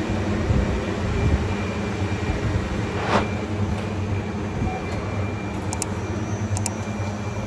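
Doosan Puma TT1500SY multi-axis CNC machine running under power: a steady mechanical hum with several held tones, and a brief hiss about three seconds in.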